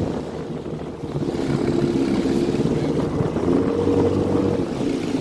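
Jet ski engine running, growing louder about a second in and then holding steady.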